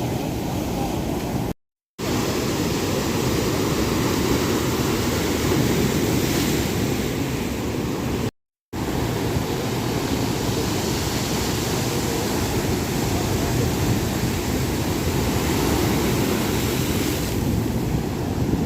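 Ocean waves breaking on the shore, a steady rushing surf with wind on the microphone. The sound drops out completely twice, briefly.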